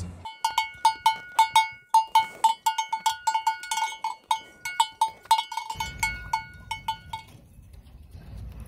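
Metal bell on a grazing cow's collar clanking irregularly, several strikes a second, each ringing the same note; the clanking stops about seven seconds in. A low rumble comes in near the end.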